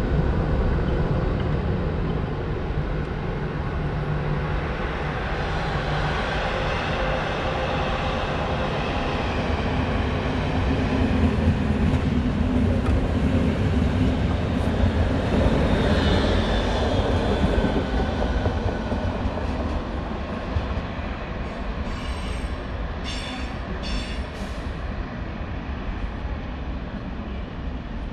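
A train running on the tracks: a steady rumble with shifting motor tones, loudest around the middle and easing off near the end, with a few short sharp clicks late on.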